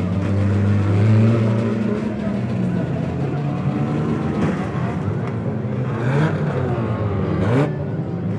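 Several banger racing cars' engines revving on track, their pitches rising and falling over one another, with a few sharp bangs, the sharpest near the end.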